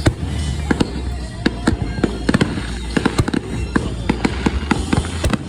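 Fireworks going off: a rapid, irregular string of sharp cracks and pops, dozens of them, over a steady low drone.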